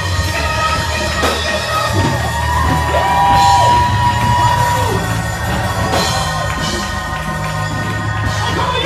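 Live gospel praise music from a church band: a keyboard holding long chords over a steady bass, with voices singing and calling out over it.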